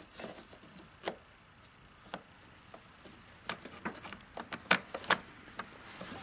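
Light metallic clicks and knocks of chainsaw parts being handled and fitted back together during reassembly. A few separate clicks come first, then a quicker run of sharper clicks between about three and a half and five seconds in.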